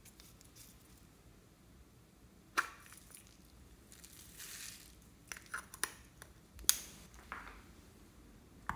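Small plastic slime tub handled over a glass tray: a few sharp plastic clicks and taps, with a short crackling rustle about halfway through as the bead-filled slime is tipped out.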